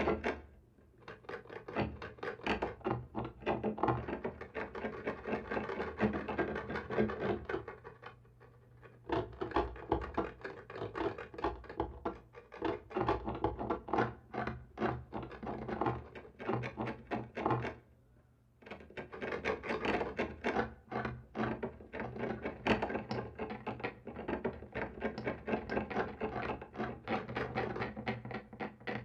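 Scratching and scraping on a wall, in rapid, irregular strokes, like something clawing at it. There are three brief pauses: just after the start, about a third of the way in, and about two-thirds in.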